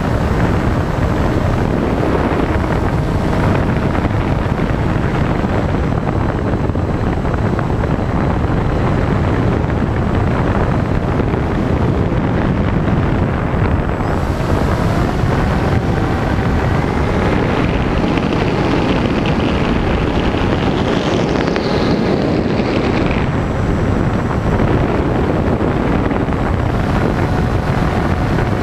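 Steady rushing wind noise on the microphone of a Raptor 2M FPV model glider in flight. A faint whine rises and falls about twenty seconds in.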